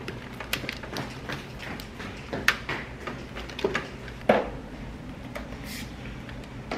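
Irregular light clicks and clacks of hair clips and perm-machine clamps being handled and fastened, over a low steady hum; the sharpest clack comes about four seconds in.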